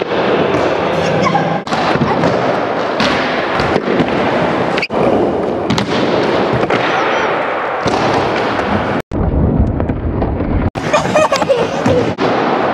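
Skateboard wheels rolling on a concrete bowl, with repeated knocks and clacks of the board and landings. The sound cuts off and changes abruptly several times.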